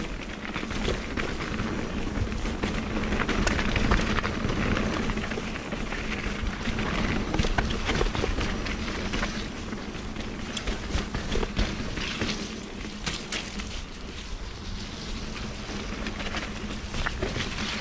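Mountain bike riding a dirt trail: continuous tyre noise over the ground, with frequent clicks and rattles from the bike over roots and stones.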